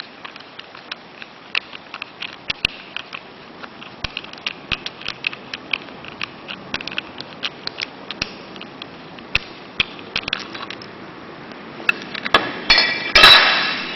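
Many small metallic clicks and taps as a shower door handle is taken apart, then near the end a few louder clinks of metal parts striking, with a short bright ring.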